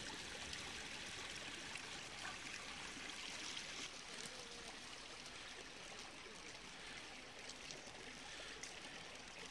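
Faint, steady hiss of running, trickling water, as from meltwater on a wet, slushy street.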